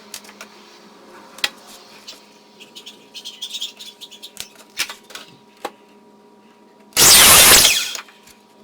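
Workshop work sounds: scattered light clicks and knocks over a faint steady hum, then a loud burst of noise lasting about a second, about seven seconds in.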